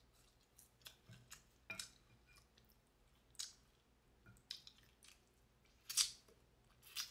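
Close-up eating sounds: chewing with scattered wet lip smacks and clicks as fingers go in and out of the mouth, the loudest two about six and seven seconds in.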